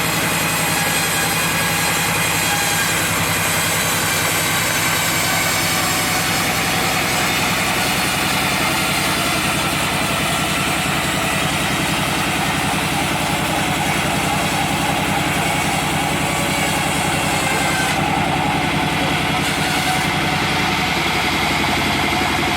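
Chainsaw engine running steadily and loudly, its pitch holding nearly even throughout.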